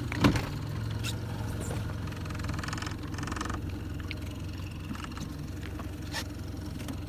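Boat engine idling steadily, with a sharp knock about a quarter second in and a brief hiss about three seconds in.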